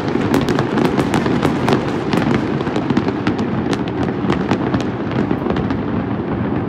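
Fireworks display: a dense run of sharp crackles and pops over a steady low rumble, the crackles thinning out after about four seconds.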